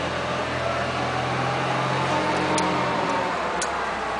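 Steady hum of a running machine that stops a little past three seconds in, with a couple of light clicks near the end as a torque wrench is pulled to 100 inch-pounds on a bolt seated in a 3/8-16 Plusnut.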